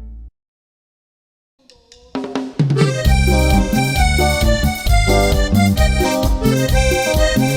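A held final chord of one song cuts off just after the start, followed by about a second and a half of silence. Then a new Latin dance song starts, building to a full band of accordion and drum kit by about three seconds in.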